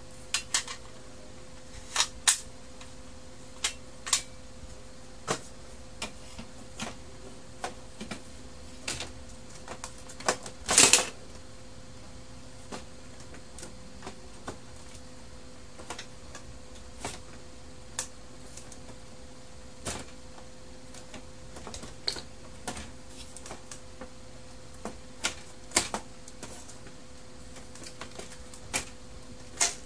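Irregular clicks and clacks of a disassembled Brother laser printer's plastic and sheet-metal parts being handled and fitted by hand, with a louder clatter about eleven seconds in. A faint steady hum runs underneath.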